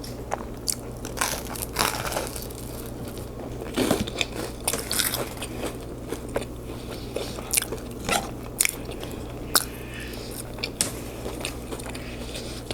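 A person chewing and smacking on a mouthful of food close to the microphone, with irregular sharp clicks of lips and tongue over a faint steady hum.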